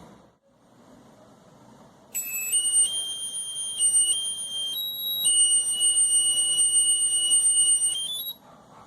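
A drone's electronic beeper plays a series of pure tones about two seconds in. It steps between a few pitches, holds one long steady tone, and ends with a quick rising pair of notes, as a drone does when powered up.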